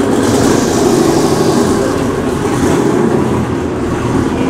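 Time-attack race car's engine running at low revs as the car pulls out of the pit garage and rolls away down pit lane, a steady note that eases slightly as it moves off.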